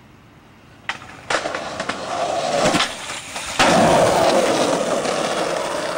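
Skateboard wheels rolling on concrete, louder as the board approaches, then a sharp pop of the tail and, under a second later, the loud slap of the board landing after a drop down the stairs, followed by loud rolling away on the concrete.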